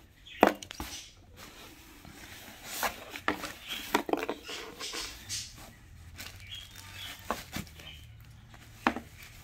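Handling of fabric stuff sacks and their drawstring cords inside a cardboard box: scattered light taps, clicks and rustles, with one sharp knock about half a second in.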